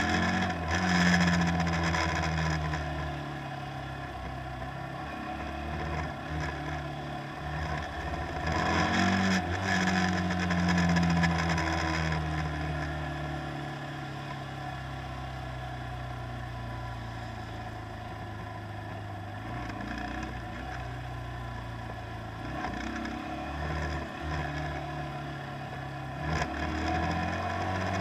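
Boat engine running steadily with a rushing wash of water and wind; it grows louder for a few seconds around the middle while its tone slowly sinks.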